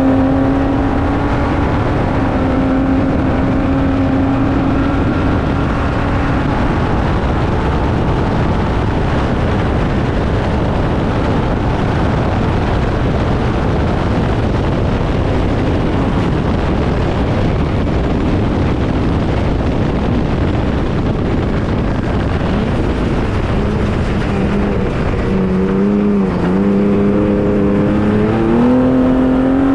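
Trophy truck's Ford EcoBoost engine running hard at a steady high pitch. After several seconds its note fades into a loud, even rushing noise, then it comes back and rises in pitch near the end.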